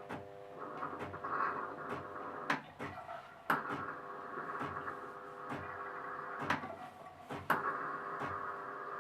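Saeco Giro Plus espresso machine frothing milk with steam through its milk frother: a steady hum and hiss, with a sharp click about once a second.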